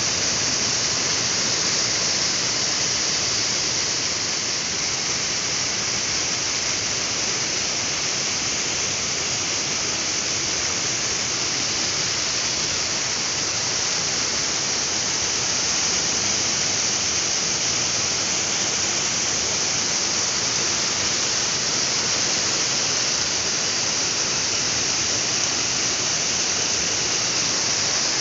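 Water pouring over the rim of a reservoir wall and falling onto rocks, a strong, steady rush of falling water close to the microphone.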